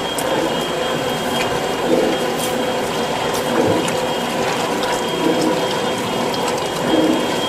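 Auger-fed Vincent shredder and screw press running, its 1-horsepower electric motor and gearbox humming steadily with a few small clicks, as the auger takes in a hopper full of tomatoes.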